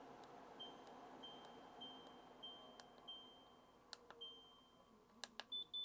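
Short high electronic beeps from a Shark HC501 air purifier, about one every 0.6 seconds, acknowledging presses as the fan speed is stepped through. There are a few sharp button clicks and a higher beep near the end, over a faint fan hum.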